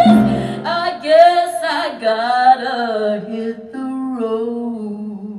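Woman singing a slow closing phrase of a jazz blues with vibrato. The piano and bass drop out about half a second in, and the voice carries on almost alone and fades near the end.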